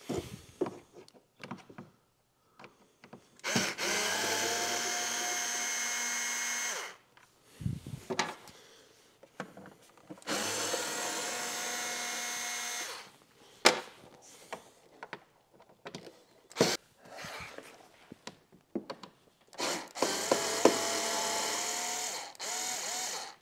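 Small cordless power driver backing out screws in three runs of about three seconds each, its motor whine rising briefly as each run starts. Clicks and knocks of the tool and screws being handled come between the runs.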